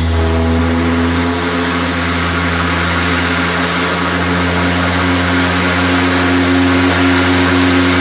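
Large steam whistle blowing one long, steady deep note, with the hiss of escaping steam underneath.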